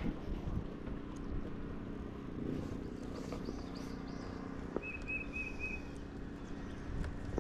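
Steady wind rumble over the outdoors, with a small bird calling four quick, high chirps about five seconds in.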